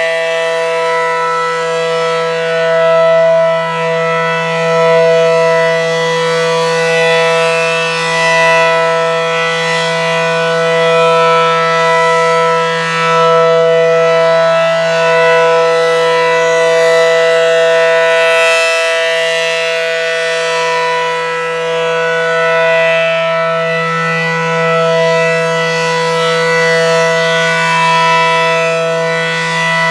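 ACA Allertor outdoor warning siren, a very low-pitched unit, sounding a steady alert tone: one unbroken, steady pitch rich in overtones, swelling and fading gently every few seconds as the siren rotates.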